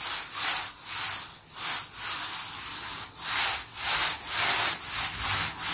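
Paint roller on an extension pole being rolled up and down a plastered wall, a run of short swishing strokes at about two a second.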